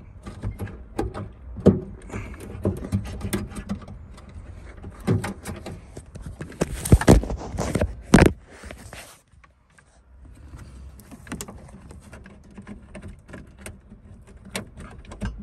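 Hand and arm fumbling inside an R56 Mini Cooper's door cavity, feeling for the jammed lock: scattered clicks, knocks and scrapes against metal and plastic door parts. There are two loud knocks a little past the middle, then a short lull before the fumbling resumes.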